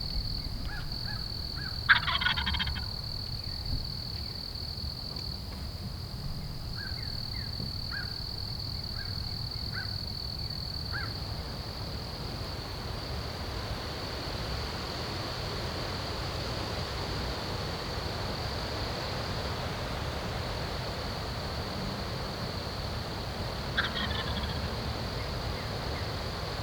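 Wild turkey gobbler gobbling twice: a loud, rattling gobble about two seconds in and a fainter one near the end. A steady high insect trill and light wind run underneath.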